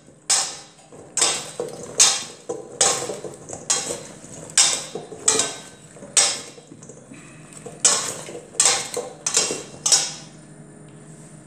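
Two metal spoons tossing sliced raw potatoes in a stainless steel bowl, clinking repeatedly against the bowl's side, about one to two clinks a second, stopping shortly before the end.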